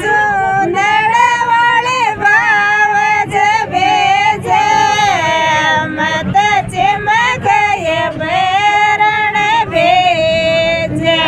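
Women singing a Rajasthani folk song, a bhat geet, in high voices, the melody gliding and ornamented from phrase to phrase.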